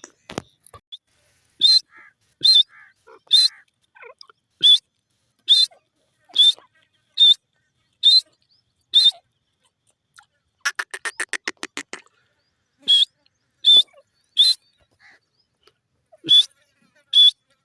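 Grey francolin calling: a run of loud, shrill, high notes just under a second apart, broken about eleven seconds in by a quick rattling series of short notes before the shrill notes resume.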